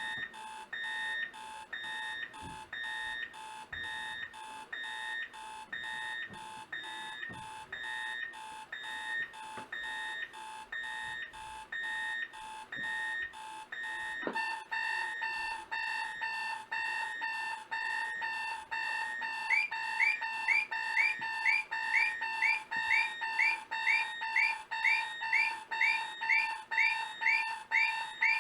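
Several vintage electronic alarm clocks beeping at once: a Sears 7196 and a Kmart KMC 500A, joined about halfway through by a Soundesign 3634BLK and then by a Sony ICF-C3W with a fast chirping alarm. The din grows louder as each clock joins.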